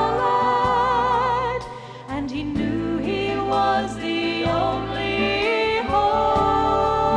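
Southern gospel song: a sung vocal line with vibrato over sustained instrumental accompaniment, with a brief break in the singing about two seconds in.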